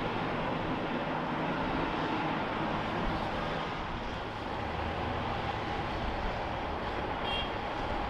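A motor vehicle running, with steady engine and road noise, and a short high tone about seven seconds in.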